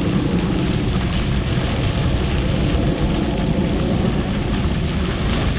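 Steady rushing of water from a waterfall pouring into a polar bear pool, a constant low rumbling noise with no distinct splashes standing out.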